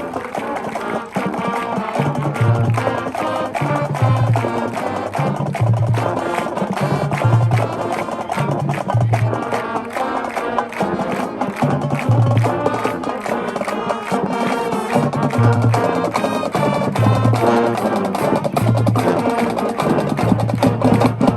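High school marching band playing loudly: brass and woodwinds over a drumline, with a low bass pulse about every one and a half to two seconds.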